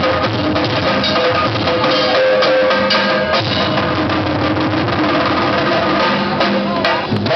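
Dance music with fast, dense drumming over held tones.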